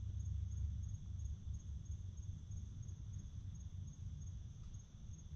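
Crickets or similar evening insects chirping in an even pulsing rhythm with a steady high drone, over a low rumble.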